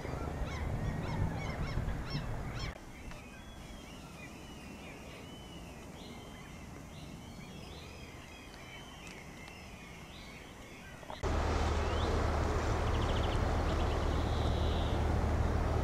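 Waterfowl calling repeatedly, then after a cut, songbirds singing in a pine forest. Near the end it cuts to a louder, steady low rumble and hiss.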